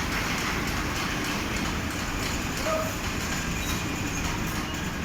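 Large fabric spreading machine running: a steady mechanical noise with a low hum underneath.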